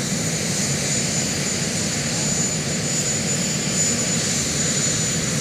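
Engines of a Sikorsky VH-3D Sea King helicopter (Marine One) running on the ground: a steady, loud rush with a thin high whine held on top.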